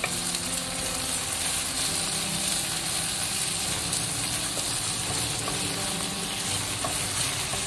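Green garlic stalks and roast pork sizzling steadily as they are stir-fried in a wok, with a wooden spatula tossing them.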